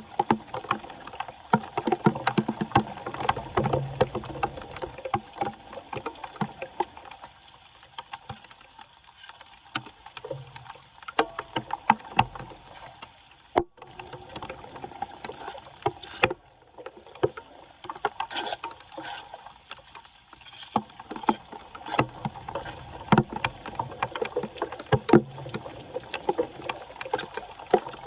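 Floodwater splashing and sloshing in irregular strokes, with scattered sharp knocks and scrapes.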